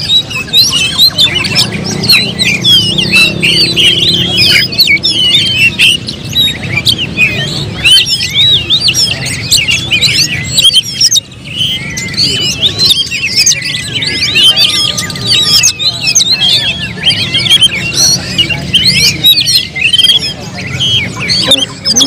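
Oriental magpie-robin singing: a fast, unbroken stream of varied chirps, trills and whistles, with a brief pause about eleven seconds in.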